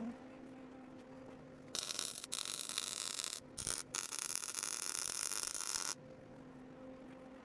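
Welding arc from a Miller welder crackling and hissing steadily for about four seconds, with two brief breaks, as a weld bead is run on a rear-axle spring perch. A low hum is heard before and after the arc.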